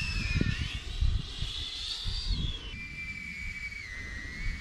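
SUB400 speed quadcopter with eight-blade props: a high-pitched whine from its motors and propellers falls in pitch as it pulls away after a fast pass, then steadies and steps down slightly near the end. Gusty low rumbling sits underneath.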